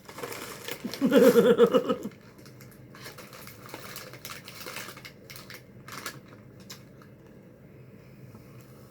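A person burping once, loudly, about a second in, the burp lasting about a second with a wavering pitch. Faint crinkling and clicking follow.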